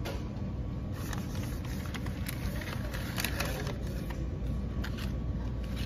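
A steady low background rumble, with scattered light crackles of a paper takeout bag being handled.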